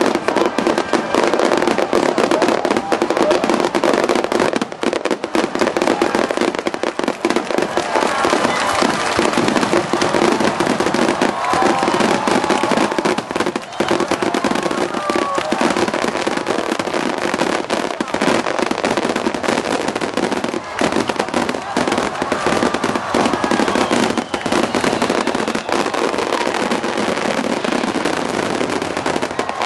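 A dense barrage of aerial fireworks shells bursting, with many bangs and crackles overlapping without pause at a loud, steady level.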